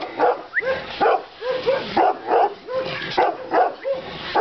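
A 7½-month-old Romanian Raven Shepherd Dog barking repeatedly, about two to three barks a second.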